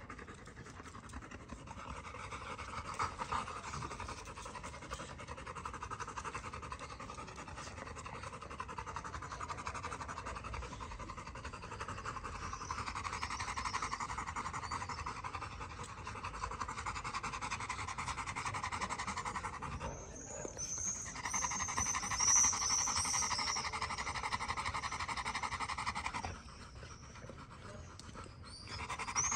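Yellow Labrador retrievers panting heavily and rapidly during a mating.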